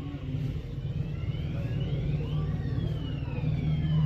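A siren wailing, its pitch rising for about a second and a half and then falling slowly, over a steady low rumble.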